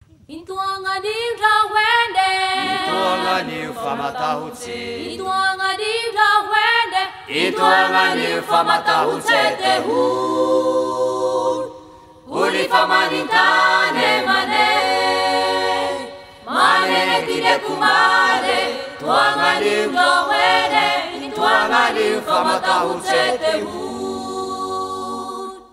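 A choir singing unaccompanied, several voices together, with a short break about halfway through and a stop just before the end.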